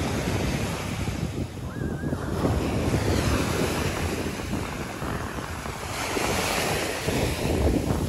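Surf breaking and washing up a sandy shore, with wind buffeting the microphone; the hiss of a wave's foamy wash swells near the end.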